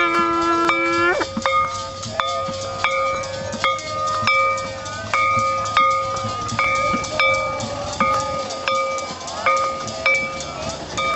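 Temple bell struck by hand in a steady rhythm, about three strikes every two seconds, each stroke ringing on, over a steady hum. A held, wavering tone fades out about a second in.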